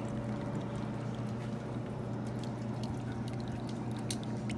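A shaken cocktail being double-strained from a shaker through a fine-mesh strainer into a glass of ice, liquid trickling and dripping steadily, with a few faint ticks, over a steady low hum.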